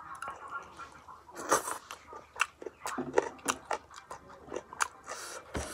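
Close-up eating sounds: a person chewing and smacking on a mouthful of rice and curry, with fingers squishing the food on the plate, a rapid, irregular run of short wet clicks and smacks.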